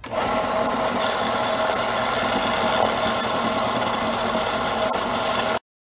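Bench belt sander running steadily, with a row of wooden toy wheels on a dowel held against the abrasive belt to sand their edges off. The sound stops abruptly near the end.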